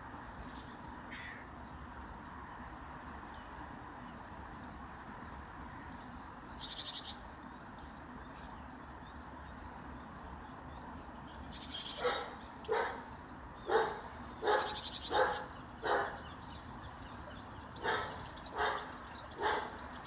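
An animal calling loudly in a run of short calls: six in quick succession, then a pause of about two seconds and three more. Faint high bird chirps sound in the background.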